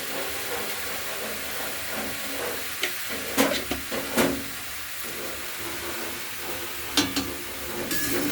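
Spinach, radish and potato sizzling in hot oil in a kadai as they are stir-fried, with a spatula scraping against the pan several times, in clusters about three seconds in and about seven seconds in.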